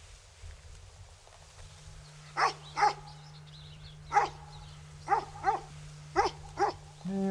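A large white dog barking seven times, mostly in quick pairs, starting about two seconds in.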